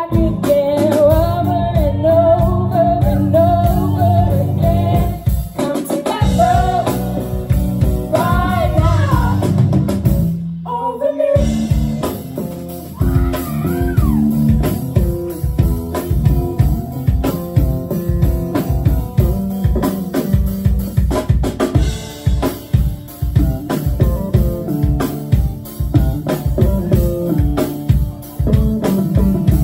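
Live rock band playing loudly: a woman singing a melody into a microphone over electric guitar, bass and a drum kit. Just after ten seconds the band cuts out for a moment, then comes back in on a driving drum-and-guitar beat with less singing.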